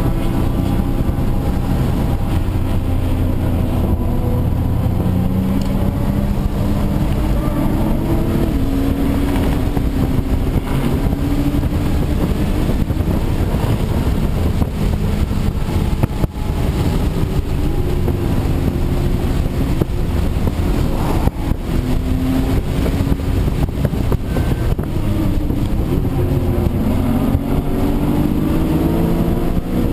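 Audi B5 S4's twin-turbo V6 heard from inside the cabin under hard driving, its pitch climbing as it accelerates and dropping as it shifts or lifts for corners, over a steady rush of road and wind noise.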